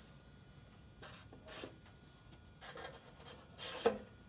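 Pen drawing marking lines on a gutter: a few short scratching strokes, the last and loudest near the end.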